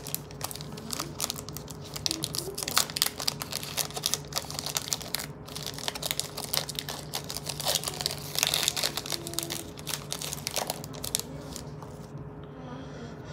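Foil trading-card pack wrapper crinkling and crackling as it is torn open and handled, the crackling stopping a second or so before the end.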